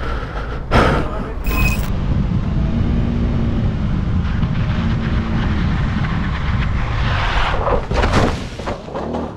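Bajaj Pulsar AS 200 single-cylinder engine running under steady wind rumble on an action camera, after a short loud burst about a second in. Around eight seconds in a loud rush of noise rises as the leaned-over bike starts to go down.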